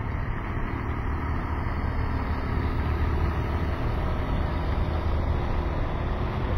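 Motorcade of police motorcycles, police cars and black SUVs driving past: steady engine and tyre rumble, a little louder from about two seconds in.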